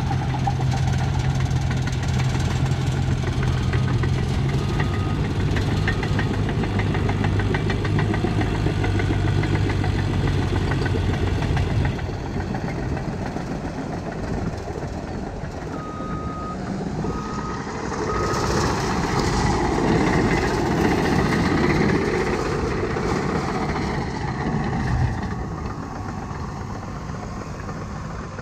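Diesel engines of a Caterpillar D5K crawler dozer and a 953K track loader running under load while pushing fill dirt: a steady engine drone, then a louder, swelling stretch of engine and track noise. A backup alarm beeps three times a little past the middle.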